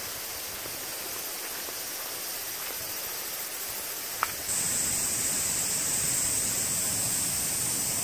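Steady rush of flowing stream water. About halfway through it suddenly gets louder and a higher hiss joins it.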